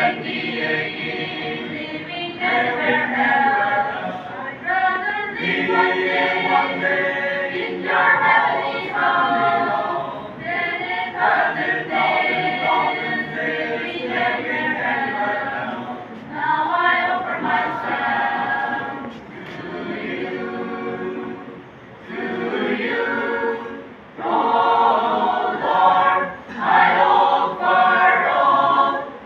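Mixed choir of young men and women singing a worship hymn a cappella in parts, in long sustained phrases with brief pauses between them.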